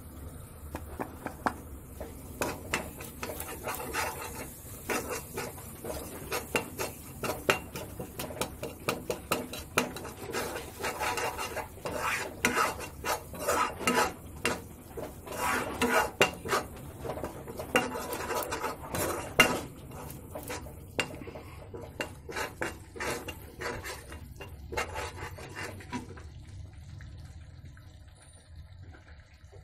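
Steel spatula scraping and clinking against a metal kadhai while stirring thick tomato masala. It is a busy, irregular run of scrapes and knocks that thins out a few seconds before the end.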